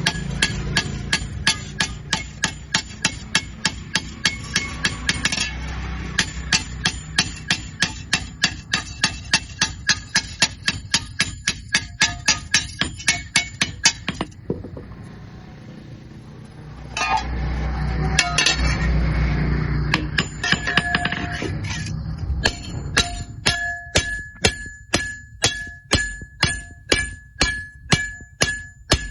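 Rapid, even hammer blows on an iron tool part, about two to three a second, each with a metallic ring. The hammering stops briefly past the halfway point, where a low rumbling noise sounds, then resumes with a clearer ringing tone.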